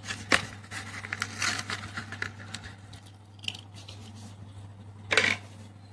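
Plastic blister and cardboard card of a carded Hot Wheels die-cast car being torn open and handled: a run of short crinkles and scrapes, then a louder rustle about five seconds in.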